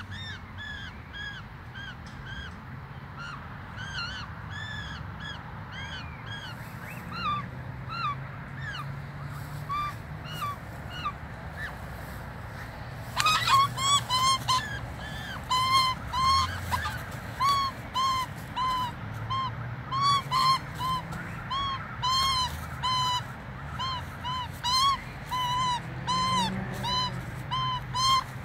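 A mating pair of Australian magpies calling: a long run of short, arching squawks repeated about twice a second. They are fainter and higher in the first half, then after a sudden scuffling noise about halfway through they grow louder and lower.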